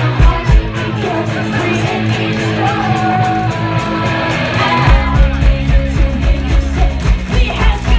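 Live punk-pop band playing loud through a club PA: electric guitar chords ring on with little bass or beat, then the low driving beat of the full band comes back in about five seconds in.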